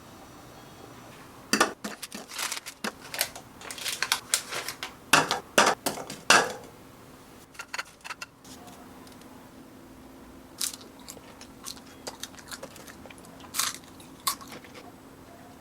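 Crispy microwaved sliced-cheese snacks being handled on a dish, making quick clusters of sharp cracks and clicks in the first half. After that come only a few single clicks.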